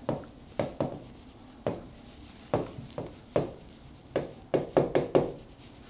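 Marker pen writing on a whiteboard: about a dozen short, irregular pen strokes as letters are written.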